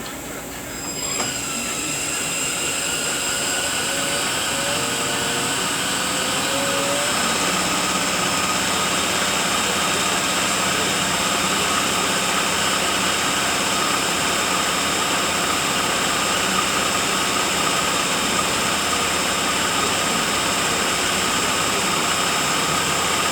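Rebuilt FRTLL heavy-truck transmission spinning on a dyno test stand, with a steady mechanical whine. It comes up to speed in the first second or two, and a short wavering tone sounds between about four and seven seconds in.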